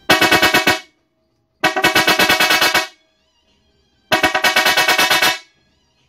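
Small-head 'çat çat' electric vibrator horn, rebuilt with new contact points and 0.8 mm copper coil windings, sounded in three blasts of about a second each: a loud, rapid, rasping rattle-buzz, tremendous in tone.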